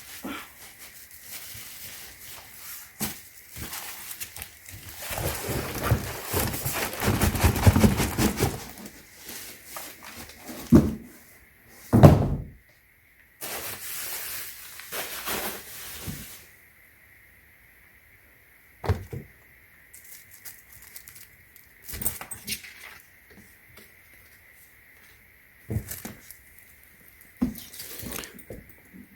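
Handling noise from unboxing hardshell suitcases: a few seconds of rustling, then scattered knocks and thumps, the loudest about twelve seconds in.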